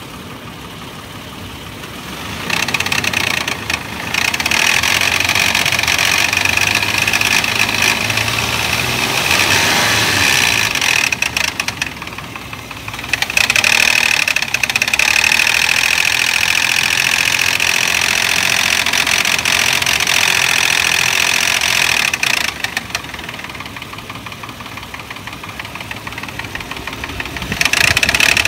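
Toyota Prado's 1GR-FE V6 engine running with a knocking noise from a faulty VVT-i (variable valve timing) unit. It gets louder a couple of seconds in, dips briefly midway, and drops back for several seconds near the end before picking up again.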